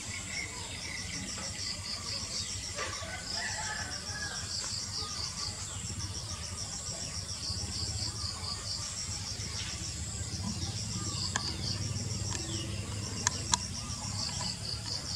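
Insects chirping in rapid, repeating trains over a low steady hum, with a few sharp clicks near the end.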